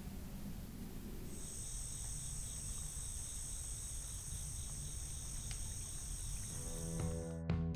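Steady high-pitched chorus of night insects, a pulsing trill, picked up by a trail camera's microphone. Near the end it cuts off and music comes in.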